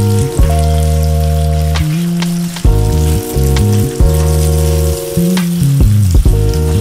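Battered whiting fillets frying in shallow oil in a pan: a steady crackling sizzle with a few sharper pops, under background music.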